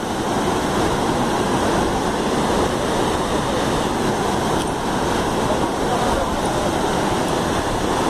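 Dam spillway discharging heavily: water rushing steadily as its jet leaves the concrete chute and crashes into spray.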